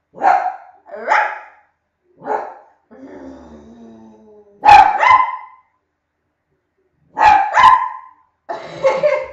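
A dog barking in short, loud barks, at first singly and then in quick pairs, with a brief whine between them.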